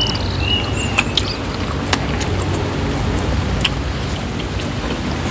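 Close-miked eating sounds from grilled chicken being chewed and pulled apart by hand: wet chewing and smacking with scattered sharp clicks, over a steady low rumble. A few short, high chirps sound near the start.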